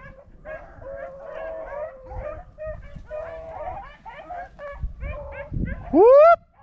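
Pack of rabbit hounds baying and yelping in a continuous chorus, opening on the track of a freshly jumped rabbit. About six seconds in, one dog close by gives a single loud rising howl.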